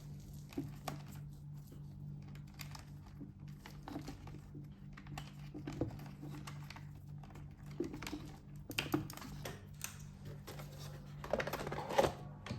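Light clicks, taps and rustles of hands handling the plastic parts of a Roborock robot vacuum during reassembly, a few louder knocks near the end.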